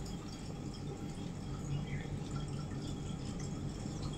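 Faint rustling and small taps as hands move satin fabric and a tape measure while marking a cutting line, over a low steady hum.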